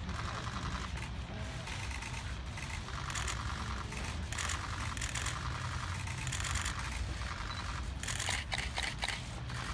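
Outdoor ambience: a steady low rumble, with brief patches of higher hissing or rustling that come and go throughout.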